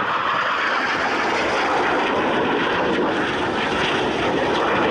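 Jet noise from a BAE Hawk T1's Adour turbofan as the aircraft flies past: a steady, loud rushing roar that deepens near the end.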